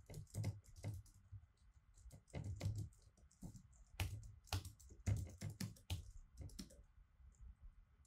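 Typing on a computer keyboard: irregular runs of quick keystrokes, thinning out near the end.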